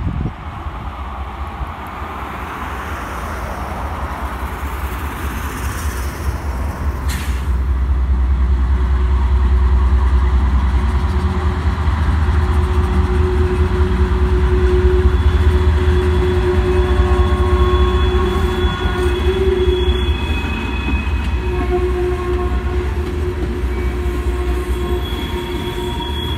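Freight train passing: the low diesel rumble of two GE road locomotives builds to its loudest as they go by, then empty coal hopper cars roll past. Thin high-pitched wheel squeals come and go over the rumble.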